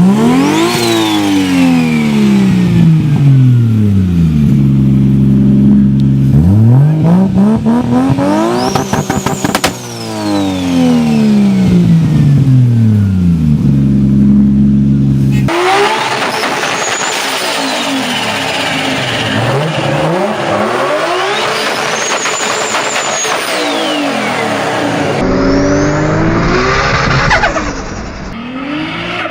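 A turbocharged straight-six car engine revs up and falls off again several times. A high turbo whistle rises and falls with it, and there is a rapid flutter as the throttle closes, before the note drops. The sound changes twice, at about the middle and near the end, as it moves to a different car.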